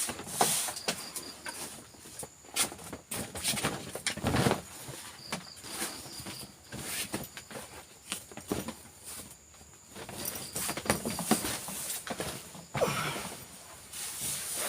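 Irregular rustling, crackling and knocking close by, with insects chirping and buzzing steadily behind it.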